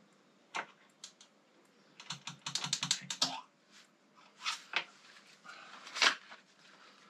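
Hand tools and parts being handled while draining engine oil: scattered sharp clicks and taps, with a quick run of about a dozen clicks about two seconds in.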